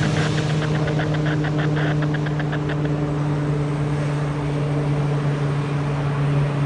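Propeller aircraft's engine running steadily with an even low hum. A quick run of light ticks, about seven a second, sounds over it for the first three seconds.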